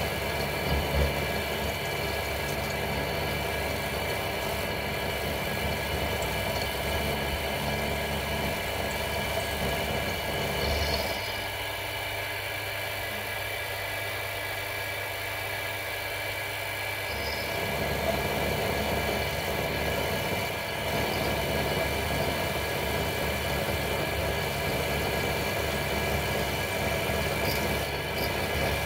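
Mini mill running, its end mill cutting a curved slot in a metal plate as the rotary table feeds the work round: a steady motor whine with the cutting noise underneath. The lower rumble eases off for several seconds around the middle and then comes back.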